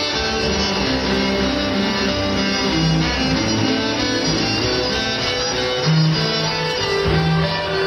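Amplified cellos playing heavy rock music, bowed notes moving over longer held low notes.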